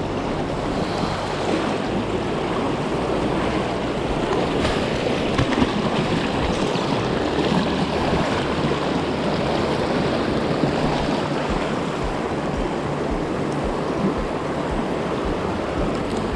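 Stream water rushing over rocks in a shallow riffle, a steady, even rushing.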